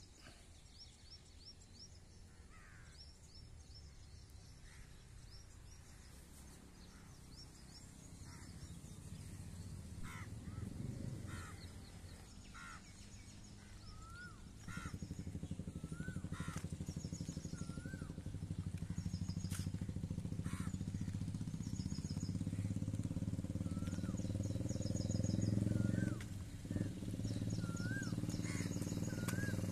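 Kia Seltos SUV approaching along the road and pulling up close: its engine and road noise are faint at first, then grow steadily louder over the second half. Birds chirp and call throughout.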